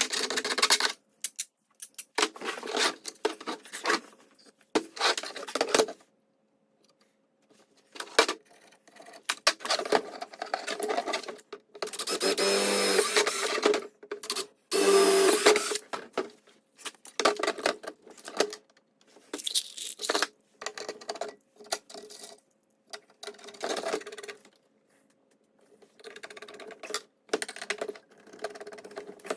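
Tools and small hardware being handled: irregular clicks and rattles with short pauses, and two louder stretches of a second or so each about twelve and fifteen seconds in.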